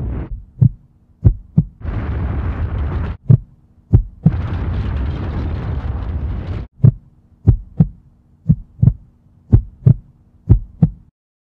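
Heartbeat sound effect: heavy low double thumps about once a second over a faint steady hum. Twice in the first half it is broken by a loud rushing rumble that starts and cuts off abruptly.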